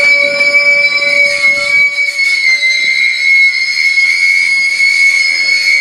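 Freight wagons rolling past with a steady high-pitched wheel squeal over a low rumble. The rumble fades about two seconds in.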